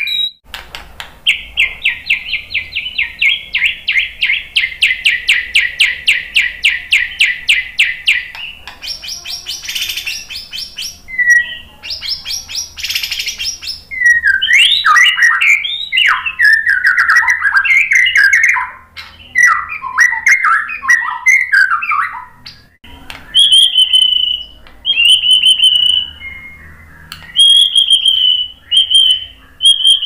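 White-rumped shama (murai batu) singing. It opens with a fast run of repeated notes lasting about seven seconds, then gives high buzzy notes and varied warbled phrases, and ends with a series of clear whistles repeated on one pitch.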